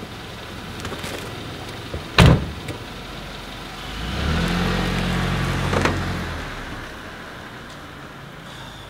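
A car door slams shut about two seconds in. The car then pulls away, its engine hum swelling and then fading as it drives off.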